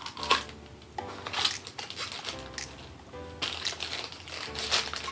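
Pink paper wrapping crinkling in irregular bursts as a small doll piece is unwrapped from its toy capsule, louder and busier from a little past the middle, over light background music.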